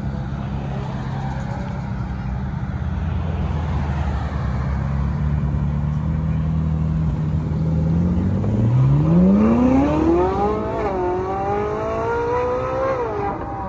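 Sports car engine running low and steady as the car pulls out, then accelerating hard about eight seconds in. The engine note climbs steeply, drops briefly at a gear change about two seconds later, and climbs again before another shift near the end.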